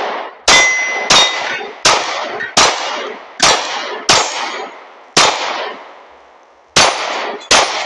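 Glock 43X 9mm pistol firing nine shots in a string, roughly one every 0.7 s at first, with longer gaps near the end. Each shot is followed by the clang and ring of steel plate targets being hit.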